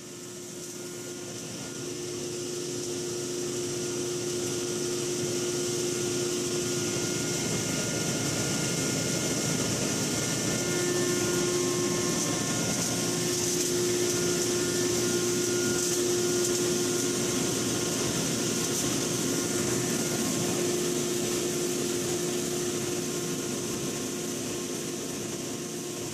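Cable Management C1 wire granulator system with a 25 hp granulator running as it chops Romex and THHN wire and separates clean bare copper chops from the plastic insulation: a steady whirring hiss with a constant hum, getting louder over the first few seconds.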